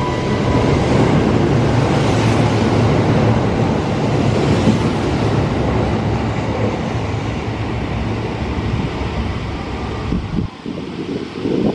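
Kintetsu 22600 series limited-express train passing through a station at speed without stopping: a loud, continuous rush of wheels on rails and running gear that drops away about ten seconds in as the last car clears.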